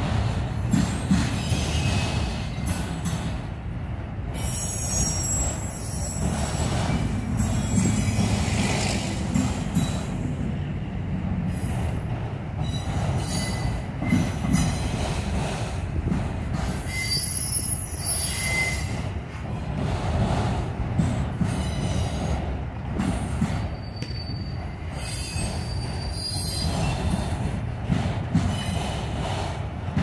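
Freight train of multilevel autorack cars rolling past, a steady low rumble of wheels on rail. High-pitched wheel squeal comes and goes several times over it.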